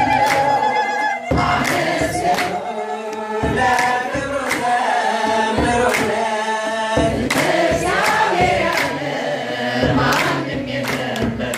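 Congregational choir singing an Ethiopian Orthodox hymn, with a kebero drum and hand clapping keeping a steady beat a little under two strokes a second.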